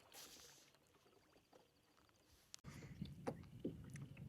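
Near silence, with a few faint short taps in the last second and a half.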